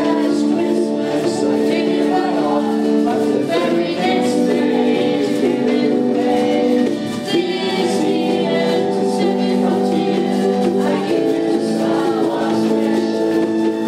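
Workshop band performing a song: several voices singing together over held chords that change every few seconds.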